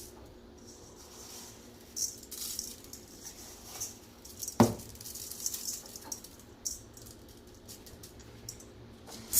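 Dry rice grains rattling as they are scooped and poured while measuring out cups of rice, in scattered short bursts, with one sharp knock about four and a half seconds in.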